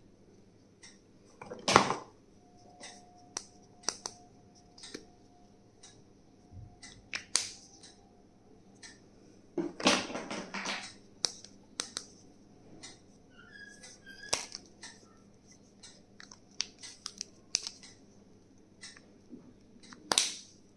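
Scattered clicks, taps and light knocks of small plastic stationery items being handled and unpacked. A louder knock comes about two seconds in, a short rustle around ten seconds in, and another knock near the end.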